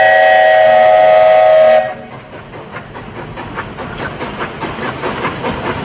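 Steam locomotive whistle blowing a loud, steady chord of several notes, cutting off about two seconds in. Then the quieter, hissing, quick and even chugging of a steam train running.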